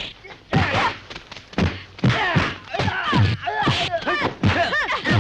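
Close-combat fight sounds: fighters' short shouts and grunts, one after another, with thuds of punches and kicks landing.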